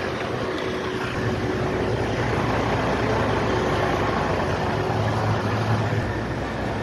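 Heavy truck engine idling, a steady low rumble that grows a little louder in the middle.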